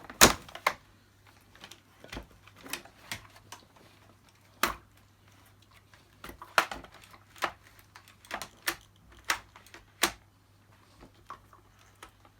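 Hard plastic parts of a Dyson DC50 upright vacuum being handled and pushed into place: one loud click at the start, then scattered, irregular lighter clicks and taps.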